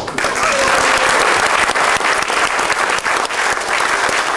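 Audience applauding, a dense steady clapping.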